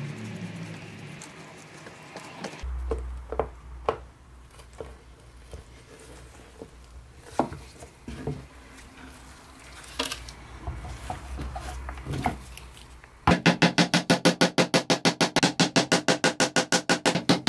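Light, scattered clicks and knocks of hand tools and wooden parts being handled on a wooden cabinet door. About 13 seconds in, a claw hammer starts striking nails into the door in a fast, even run of loud ringing knocks, about four a second.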